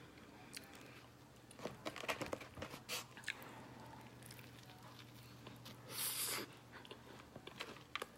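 A person chewing and biting food close to the microphone, a spring roll, with scattered crunches and mouth clicks. A short, hissy crunch-like noise comes about six seconds in, over a faint steady low hum.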